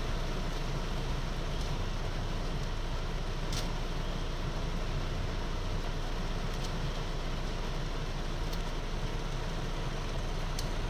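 Heavy rain falling steadily, a dense even hiss with a deep rumble beneath, broken by a few sharp ticks of single drops striking close by.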